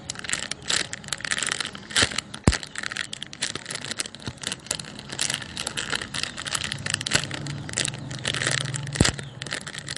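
Hands squeezing and handling a foam squishy toy close to the microphone: a dense run of crackling, rustling rubs and small clicks.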